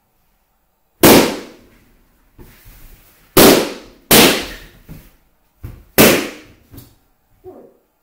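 Rubber balloons bursting: four loud pops a second or two apart, the middle two close together, with several fainter knocks and smaller pops in between.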